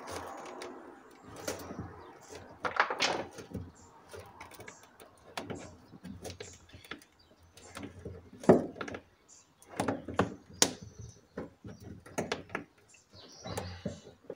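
Scattered clicks, knocks and scrapes of pliers working at a fastener behind a car's carpeted trunk lining, the loudest knock a little past halfway.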